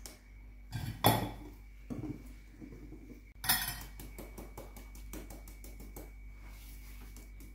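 Metal whisk working flour through a stainless-steel mesh sieve held over a glass mixing bowl: a quick run of fine ticking and scraping, with a few louder metal knocks, as flour is sifted into cake batter.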